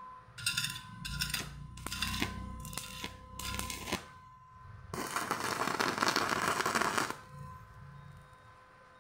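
Electric arc welding from a restored inverter welding machine with its current knob at the 11 o'clock setting. There are several short sputtering bursts as the arc strikes and breaks, then about two seconds of steady arc in the middle.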